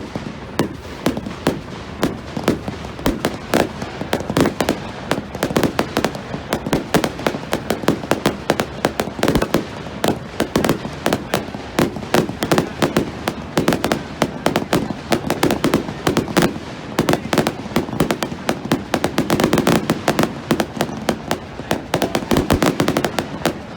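Fireworks going off continuously: dense, rapid crackling and popping, many sharp cracks a second, with louder bangs scattered among them.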